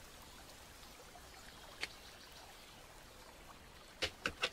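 Small laser-cut MDF puzzle pieces clicking and tapping as they are handled: one light click about two seconds in, then three quick clicks near the end, over a faint steady hiss.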